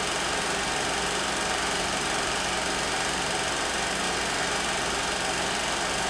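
16mm film projector running steadily: the continuous mechanical whirr of its motor and film transport.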